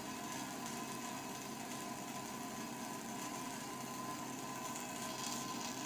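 Tap water running in a steady stream, a constant hiss with a faint thin whistle.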